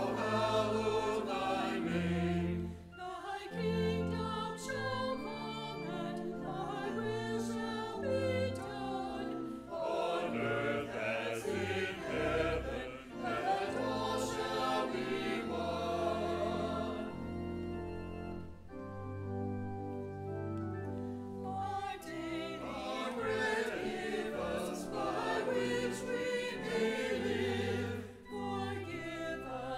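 Mixed church choir singing an anthem with organ accompaniment, the voices in sustained chords over held bass notes.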